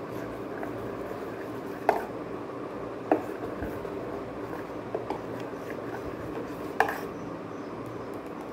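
Metal spoon stirring thick cooked rice-flour batter in a stainless steel bowl, soft wet squelching with four sharp clinks of the spoon against the bowl, the loudest about two seconds in and near the end.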